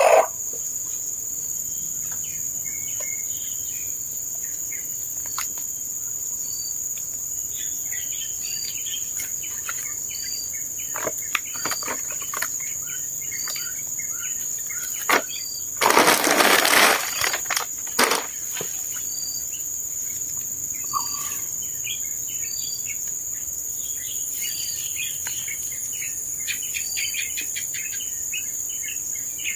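Outdoor farm ambience: a steady high-pitched insect drone with birds chirping, including a short note repeated about once a second. A brief loud burst of noise breaks in about sixteen seconds in.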